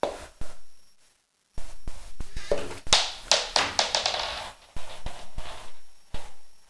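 A Lego Mindstorms NXT catapult fires with a plastic knock, then after a short pause a small Lego ball lands and bounces on a wooden floor, its taps coming quicker and quicker as the bounces die away.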